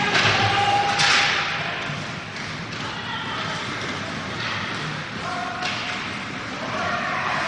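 Ice hockey game sounds in an arena: a sharp knock about a second in and a softer one later, as of puck and players hitting sticks and boards, over the murmur and calls of spectators' voices.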